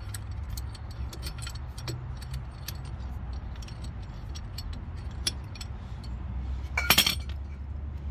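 Small metal tools and brake caliper parts being handled: scattered light clicks and clinks, with one louder clatter about seven seconds in, over a steady low hum.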